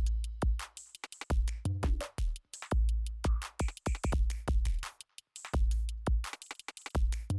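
Electronic background music with a heavy drum-machine beat: deep bass kicks and sharp hits in a steady rhythm.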